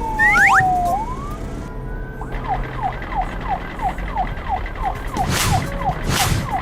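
Cartoon sound effects: a long falling whistle-like tone, then a quick run of short falling chirps, about three a second, with two whooshes near the end.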